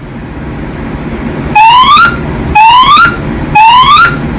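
Fire alarm speaker sounding three short rising whoop tones, each about half a second long and a second apart: the temporal-three pattern that signals building evacuation.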